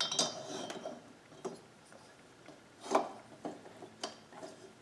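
Metal clinks and knocks from a chainsaw cylinder and mini lathe chuck being handled and adjusted by hand, the lathe not running: a ringing clink at the start, a few lighter taps, and a sharper knock about three seconds in.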